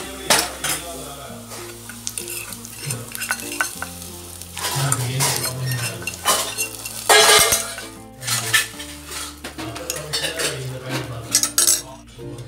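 Steel ladle stirring and clinking in a pot of dal payasam as ghee-fried coconut, cashews and raisins are tipped in, with a louder burst of sizzling about seven seconds in as the hot ghee hits the payasam.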